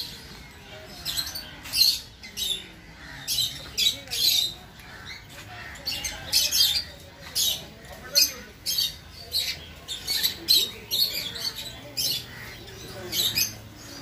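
Small parrots in an aviary giving a constant run of short, high-pitched squawks, about two or three a second.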